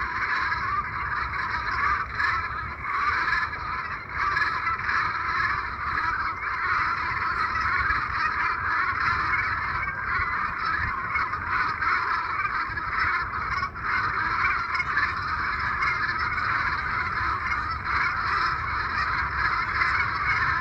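A large flock of geese honking, many calls overlapping in a continuous din.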